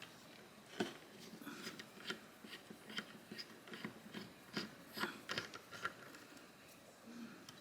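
Faint, irregular small clicks and ticks of a Torx bit driver and the knife being handled as the T8 body screws of a folding knife are loosened.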